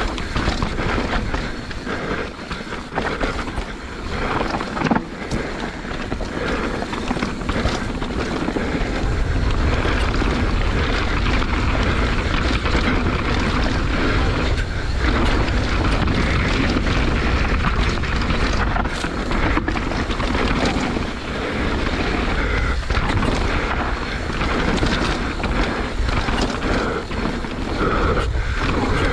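Mountain bike descending a rough trail: wind buffets the microphone over a steady rumble of tyres and rattling knocks from the bike over bumps.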